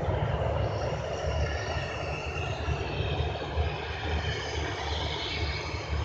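Turbofan engines of a KLM Boeing 737 running as the jet rolls along the runway: a steady high engine whine over a low, uneven rumble.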